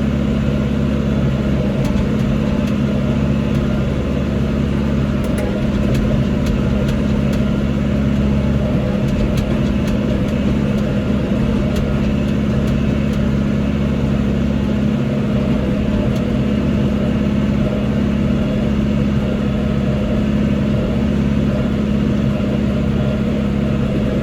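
Tractor engine running steadily at a constant speed, with a few faint ticks in the first half.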